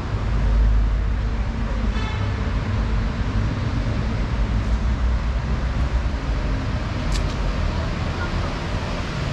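City street traffic: a steady low rumble of passing cars and buses. A brief high squeak comes about two seconds in, and a short sharp click near seven seconds.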